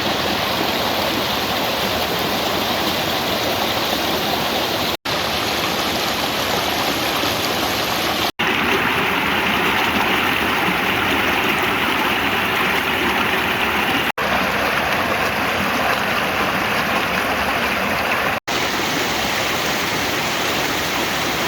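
Mountain valley stream rushing over rocks, a steady dense water noise that drops out briefly four times, a little brighter after the second break.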